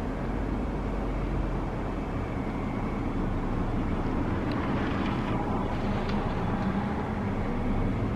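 Cessna Citation business jet's turbofan engines running at taxi power as it rolls past: a steady rumble with a faint high whine above it.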